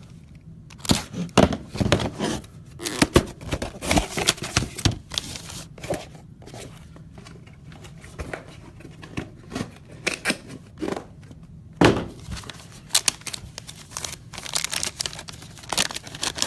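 A trading-card pack's wrapper being torn open and crinkled, the cards slid out by hand: irregular bursts of tearing and rustling with short pauses, one of the loudest rips about twelve seconds in.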